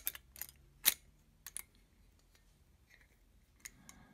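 Scattered light clicks and ticks of copper wire against glass as a stained-glass damselfly wing is worked into its copper wire body, several in the first second and a half, the sharpest about a second in, and a couple more near the end.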